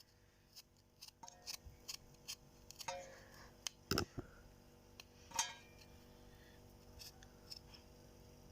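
Fresh ginger root being peeled by hand: a quiet run of short, irregular scraping strokes and clicks, the loudest about four and five and a half seconds in.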